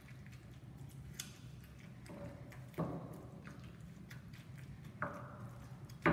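Stone pestle pounding and grinding chiles in a volcanic-stone molcajete: sharp knocks about every two seconds, each with a short ringing tail, with soft wet crushing in between.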